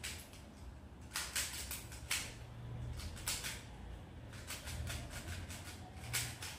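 3x3 Rubik's cube being turned quickly by hand in a speed solve: plastic layers clicking and rattling in quick, irregular strokes.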